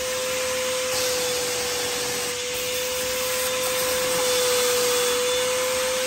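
Vacuum cleaner running steadily with its crevice tool drawn along the edge of newly laid carpet: a constant motor whine over the rush of air.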